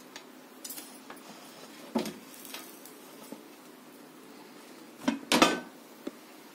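An aluminium pressure-cooker lid being handled and lifted off a pot. It gives a few light metal clinks and a knock, then a louder metal clatter about five seconds in as the lid comes off.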